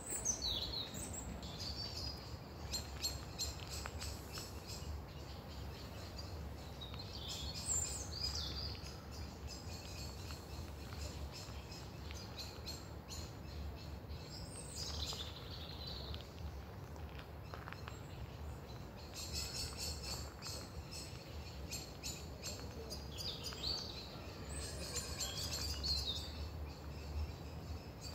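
Birds calling in garden trees: short high calls sweeping down in pitch every few seconds, with spells of rapid high ticking, over a steady low rumble.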